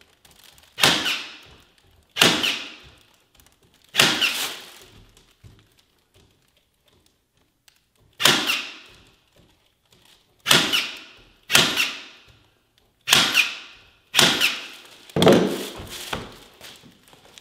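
Staples being driven through carpet tile into a painted wooden stair: about nine sharp clacks, one to two seconds apart with a pause of about four seconds midway, each ringing briefly in a small room.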